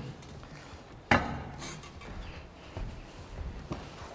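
Kitchen clatter: one loud knock of cookware being set down or handled about a second in, followed by a few softer knocks.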